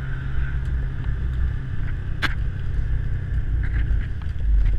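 Steady low rumble of a towed sled travelling over packed snow, heard from the towing end, with one sharp click a little past two seconds in.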